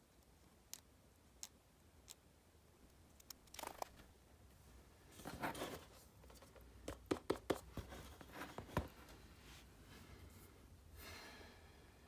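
Quiet handling noises. First come a few light ticks as a thin pick scrapes lint from an iPhone's charging port. Then rustling and a quick run of sharp clicks and taps follow as the phone and its cardboard box are moved about, with a softer rustle near the end.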